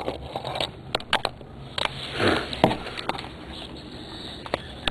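Handling noise: scattered light clicks, taps and rustles as a thin wooden board is held and turned in the hands, with a short soft breathy noise about two seconds in.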